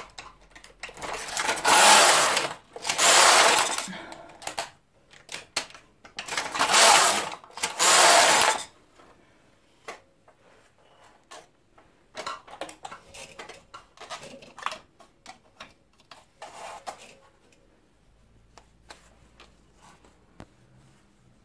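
Passap Duomatic 80 knitting machine, its carriage pushed across the needle beds: a loud rushing clatter, four passes of about a second each in two pairs, followed by scattered lighter clicks and knocks that die away.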